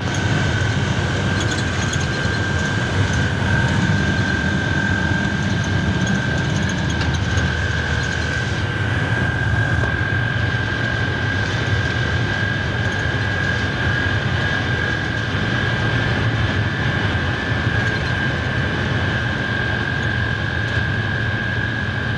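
A vacuum truck's engine and road noise heard inside the cab at steady highway speed, with a constant high whine running over the low rumble.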